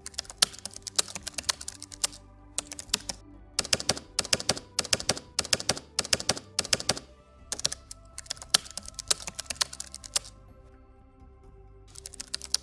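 Typewriter keys clacking in quick runs of strikes broken by short pauses, with a longer pause near the end, over background music.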